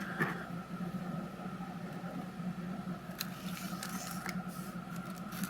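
Faint handling noise: a few soft clicks and a light rustle around the middle, as a foil trading-card pack is picked up and opened, over a steady low electrical hum.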